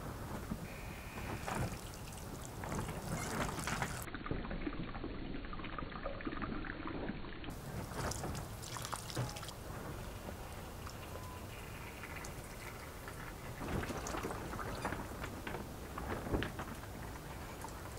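Water from a garden hose pouring and trickling onto the wet soil of a potted citrus tree, with several louder swells of splashing.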